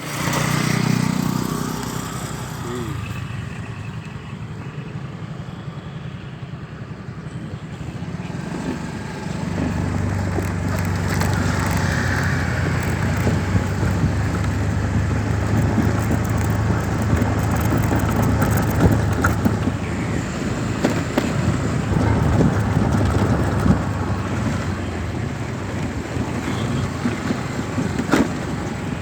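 A motor running steadily with a low hum that gets stronger about ten seconds in, with scattered knocks and handling noise over it.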